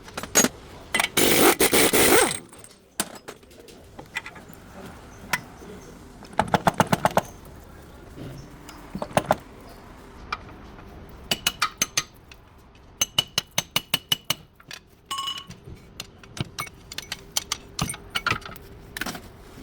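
Hand tools on metal: a ratchet wrench clicking in short quick runs, with scattered metal clinks and a brief rush of noise about a second in.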